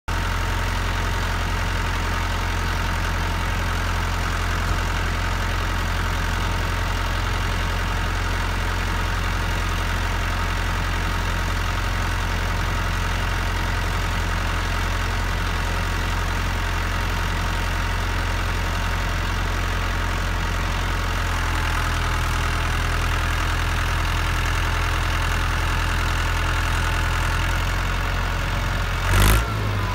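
Tractor engine idling steadily. A little past two-thirds of the way through, its note changes slightly, and near the end there is one brief loud burst of noise.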